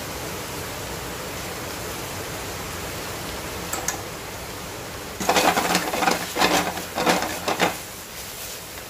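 Shrimp and vegetables sizzling in a frying pan with a steady hiss. From about five seconds in comes a quick run of scrapes and clatters as the food is stirred and tossed in the pan.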